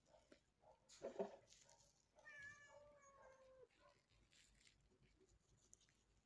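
A cat meows once, a drawn-out call of about a second and a half that dips in pitch at the end. Just before it, about a second in, there is a short knock.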